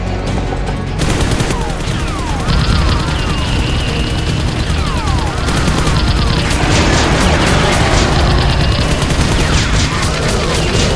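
Rapid gunfire sound effects, starting about a second in, laid over action music, with swooping whistle-like tones rising and falling through it.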